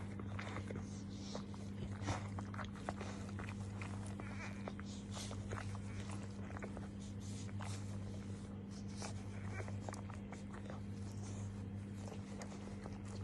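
Dogs moving about: many scattered short clicks and scuffles throughout, over a steady low electrical hum.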